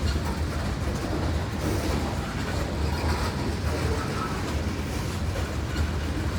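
Norfolk Southern freight train rolling past, a steady rumble of steel wheels on rail.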